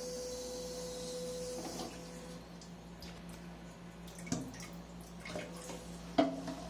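Water spraying from a TOTO TCF8PM32 bidet seat's wash nozzle during a test after a repair for weak water flow, with a steady hum under the hiss. The spray dies away about two seconds in, followed by two sharp clicks, the second louder.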